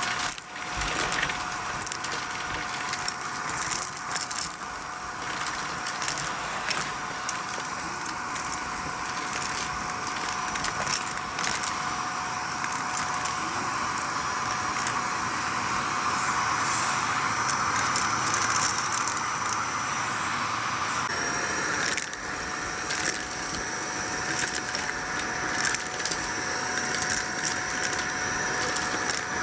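Vacuum cleaner running steadily, with grit and small debris clicking and rattling as they are sucked up. Its tone shifts slightly about two-thirds of the way through.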